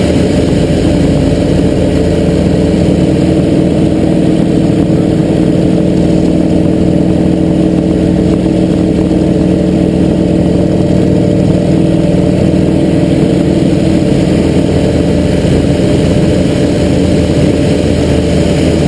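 Small aerobatic plane's engine, heard from inside the cockpit as a loud, steady drone with a constant rush of air noise over it.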